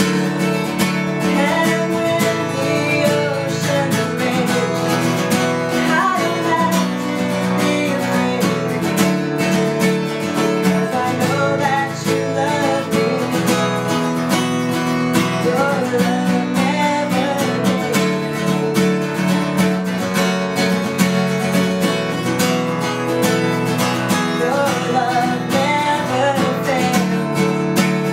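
Acoustic guitar strummed steadily, with a woman singing melody phrases over it at several points.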